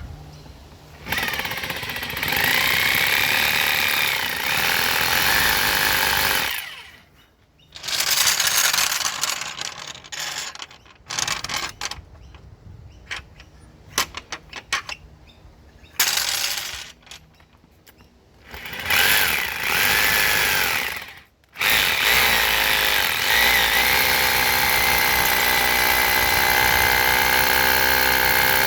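Hammer drill boring into concrete, run in several bursts with short stops between them, then running steadily without a break for the last several seconds.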